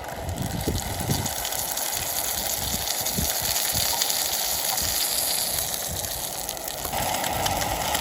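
Seasoned crappie fillet frying in a hot pan over a propane burner, with a steady sizzle.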